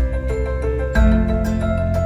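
Background instrumental music with pitched notes over a steady beat.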